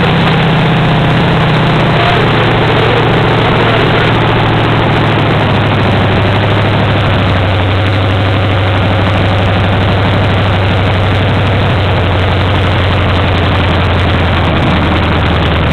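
Rebuilt Chevrolet 283 small-block V8 with a somewhat high-lift cam and a four-barrel carburetor, running loud and steady on gas poured straight into the carburetor, on its first run after years of sitting. Its speed eases slightly about two seconds in, then holds.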